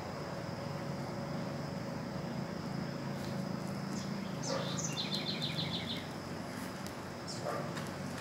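Steady high insect drone of the forest, with a short, rapid trill of about eight high notes from an animal call about five seconds in, and a brief chirp near the end.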